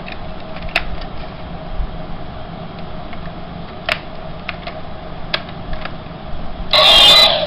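AA batteries clicking into a toy motorcycle's plastic battery compartment: a few scattered sharp clicks over a steady fan-like hum. Near the end, a short loud burst of music cuts in.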